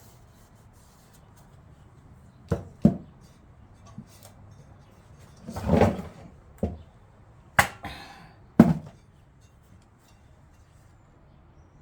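A heavy aftermarket truck bed step being handled: a series of separate knocks and clunks, with a longer scraping sound around the middle and a short ring after one of the later knocks.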